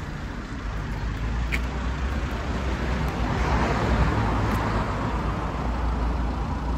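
A vehicle passing on the road, its noise swelling to a peak about four seconds in and fading, over a steady low rumble.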